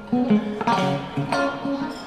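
A band playing live: electric guitar, bass guitar, drum kit and organ together, with cymbal hits about two-thirds of a second in and again near a second and a half.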